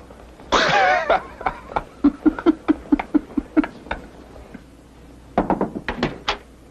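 Men laughing: a loud burst of laughter, then a rhythmic ha-ha-ha for about two seconds. Near the end comes a quick run of sharp knocks or taps.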